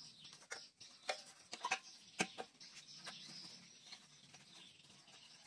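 Irregular light clicks and taps of hands handling wiring and fittings under a scooter, the sharpest a little over two seconds in.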